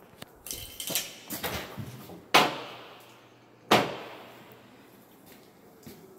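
Handling and rustling, then two sharp knocks on a plastic cooler about a second and a half apart as a large fish is grabbed out of it.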